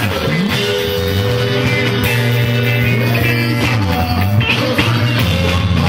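Live band playing dance music: electric guitar and keyboard over a sliding bass line and a steady drum beat.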